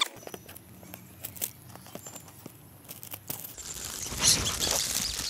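Shiny gift-wrapping paper crinkling and tearing as it is pulled off a boxed phone. There are only a few small clicks at first, then louder, denser rustling in the last two seconds.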